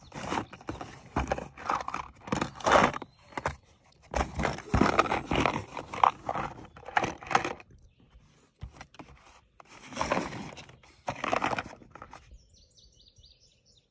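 A cardboard box of Nosler .30 caliber bullets being handled and turned over, with a string of irregular scraping and clattering noises as the box and the bullets inside shift. The noises stop about twelve seconds in, and faint bird chirps follow.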